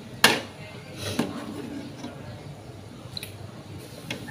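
Metal strainer ladle clinking against a stainless-steel bowl and pot, a sharp clink about a quarter second in and a softer one about a second in, as boiled dumplings are scooped from the hot water into a bowl of water. A steady low noise from the boiling pot runs underneath.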